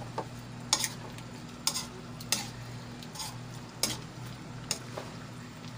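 Metal spatula scraping and knocking against a stainless steel wok as shrimp and string beans are stirred, a stroke roughly every second, over a faint sizzle and a steady low hum.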